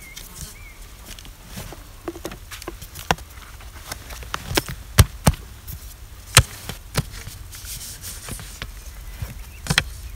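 Sharp clicks and light knocks of thin wooden painting boards and a small wooden paint box being handled and set out, about seven of them scattered through, the loudest about five seconds in.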